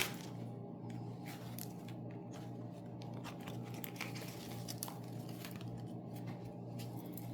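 Room tone with a steady low hum and faint, scattered small taps and rustles.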